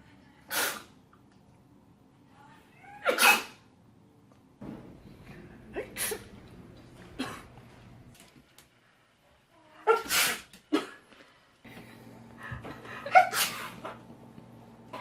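A woman sneezing over and over: about six short, sharp sneezes a couple of seconds apart, the background hum changing between them.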